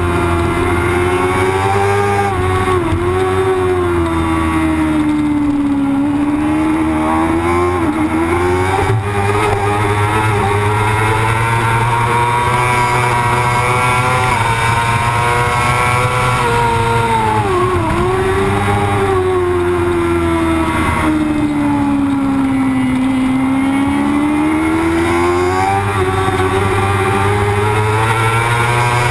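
Racing motorcycle engine heard from the bike it is mounted on, running hard at high revs through a lap. Its pitch sweeps up and down with throttle and gear changes, with a few quick sharp drops and recoveries, over a steady rush of noise.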